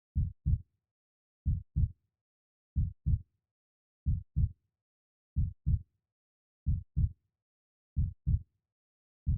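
Slow, steady heartbeat: a low double thump (lub-dub) about every 1.3 seconds, roughly 46 beats a minute.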